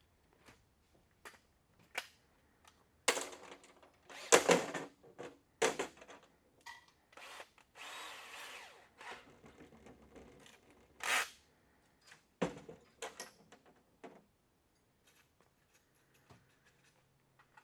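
Power drill run in several short bursts, the longest about a second and a half near the middle, among scattered clicks and knocks of work on the car.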